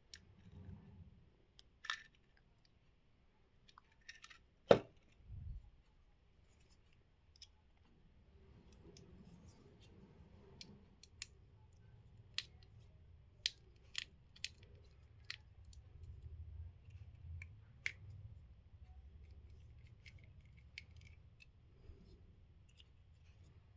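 Faint, scattered clicks and taps of a small screwdriver and fingers working at the tiny screws of a plastic earbud charging case. There is one louder knock about five seconds in, followed by a dull thud.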